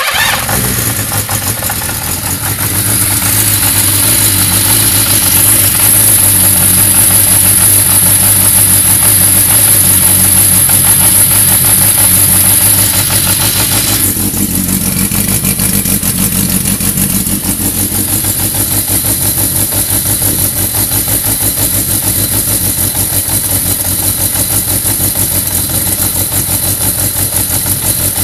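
1991 Yamaha XJ600's air-cooled inline-four engine idling roughly. It runs louder for the first dozen seconds, then drops at about thirteen seconds to a lower, uneven, pulsing idle.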